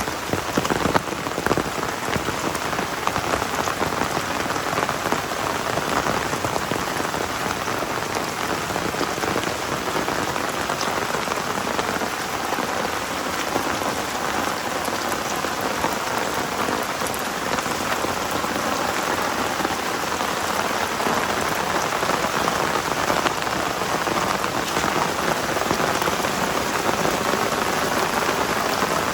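Heavy rain falling steadily, a dense, even patter of drops with no break.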